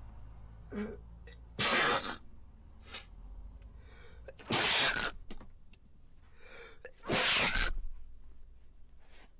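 A man sneezing three times in a row, about two and a half seconds apart, each loud sneeze preceded by a short intake of breath.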